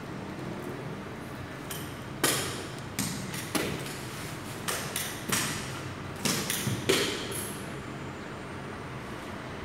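A metal forearm crutch and footsteps tapping on a tiled floor as a person walks: about nine sharp, uneven taps, echoing in a tiled hallway, that stop shortly before the end.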